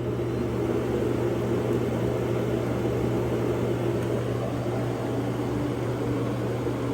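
Dreame X40 Ultra base station's auto-empty suction running, pulling the dust out of the robot's bin into the base's bag: a loud, steady rush of air over a low hum.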